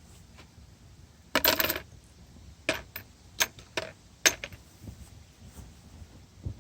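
Sharp metallic clinks of loose bolts and tools being handled and set down: a quick cluster about one and a half seconds in, then a string of single clinks over the next few seconds.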